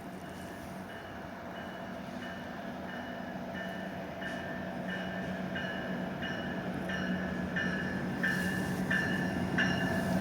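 GO Transit MP40PH diesel locomotive approaching and pulling into the station, its engine a steady drone under a bell ringing in regular strokes, about three every two seconds. Both grow louder as the train draws nearer.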